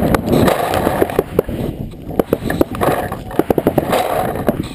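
Paintball fire: rapid, irregular sharp pops of paintball markers shooting and paintballs breaking against an inflatable air bunker, coming thickest in the second half.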